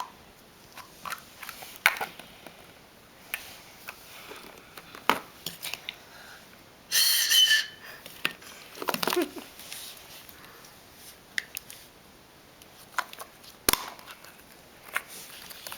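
Clicks, taps and rustling from handling plastic surprise eggs and their toy and candy contents, with a louder, denser burst of noise about seven seconds in.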